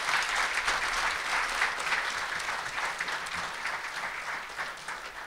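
Audience applauding, many hands clapping together; the clapping thins out and fades away toward the end.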